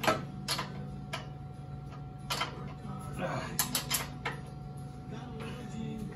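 Irregular sharp metallic clicks and knocks from hand tools working at the rear wheel's axle and hub of a cargo e-bike, several close together about three and a half to four seconds in.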